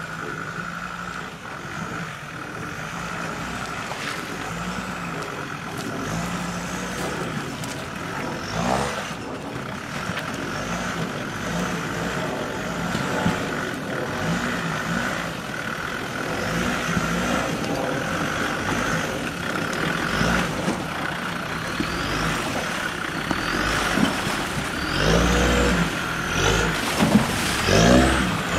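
Land Rover Discovery TD5's five-cylinder turbodiesel engine running off-road, the revs rising and falling, and getting louder in the last few seconds.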